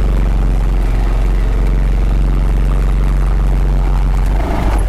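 Honda Pioneer 520 side-by-side's single-cylinder engine running steadily while the machine drives down a steep slope.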